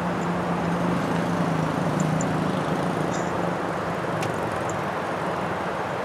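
Engines of children's small quad ATVs buzzing past over a dirt clearing, their steady hum fading out about halfway through under a continuous rushing noise. A single sharp click sounds a little after four seconds in.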